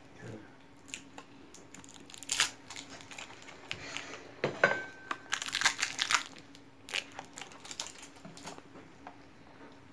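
Irregular rustling and crinkling with light clicks and knocks as hands handle cut dough pieces on a floured table; a faint steady low hum runs underneath.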